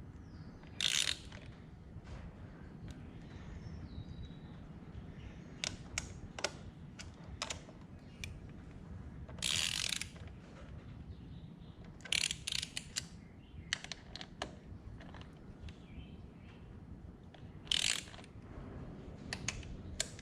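Ratcheting torque wrench tightening air cleaner bolts: several short runs of ratchet clicking, with scattered single sharp clicks in between.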